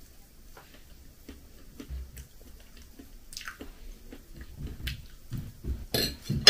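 A person biting into and chewing a rolled flatbread: soft wet chewing with many small mouth clicks, growing louder toward the end, and a sharp click near the end.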